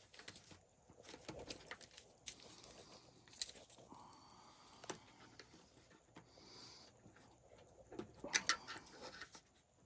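Scattered light clicks and scrapes of small hand tools and plastic parts being handled while the shocks are worked off a Traxxas XRT RC truck. A few sharper clicks stand out about three and a half, five and eight and a half seconds in.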